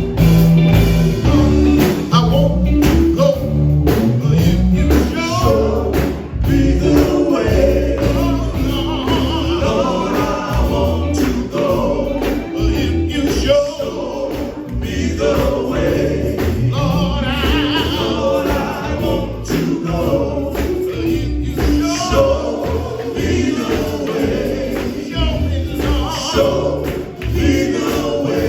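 Gospel music: a male vocal group singing in harmony with a band. A steady beat and a strong bass line run underneath.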